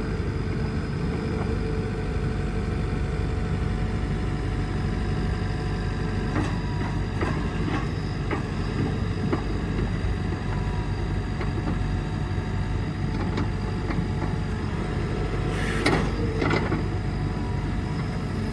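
2016 Takeuchi TB290 mini excavator's Yanmar 3.319-litre diesel engine running steadily while the boom and arm are worked. A few light clicks come midway, and there are two sharp clanks near the end.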